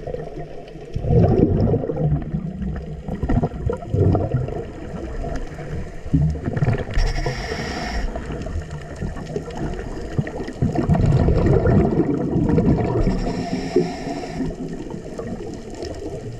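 Scuba regulator breathing heard through an underwater camera: exhaled bubbles rumble and gurgle, with two hissing inhalations, about seven and thirteen seconds in.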